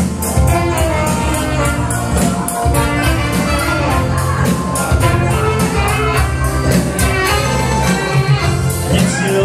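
Wedding band playing upbeat dance music, with a steady fast drum beat over a driving bass line.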